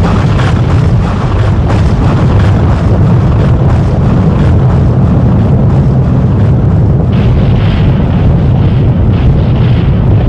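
Sound-effect rumble: a loud, continuous deep rumble with crackles through the first few seconds, and from about seven seconds in a hissing swell pulsing over it.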